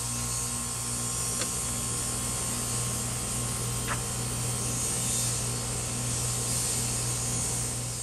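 Carrier central air conditioner's outdoor condenser unit running steadily: its top fan blowing air over a steady low hum, with two light ticks about a second and a half and four seconds in.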